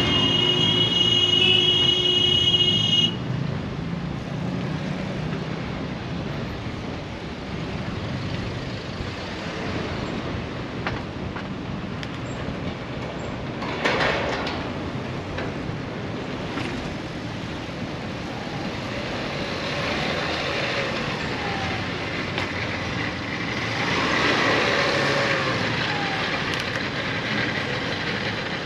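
Dense city traffic heard from a bicycle riding among cars: engines and tyre noise. A vehicle horn is held steadily for about three seconds at the start, and the noise swells briefly about halfway through and again near the end.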